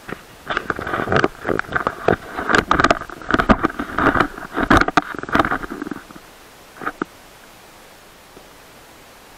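Handling noise on a small action camera's microphone as the camera is turned and repositioned: a dense run of rubbing, scraping and knocking for about six seconds. Then only a faint steady hiss, with one short click.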